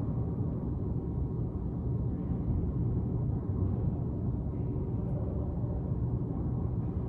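Steady low rumble of background room noise in an enclosed handball court, with no ball strikes.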